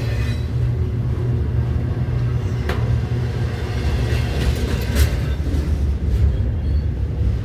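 CN freight train Z121 rolling past with a steady low rumble, broken by a few sharp clanks from the wheels and cars. The horn is not sounding in this stretch.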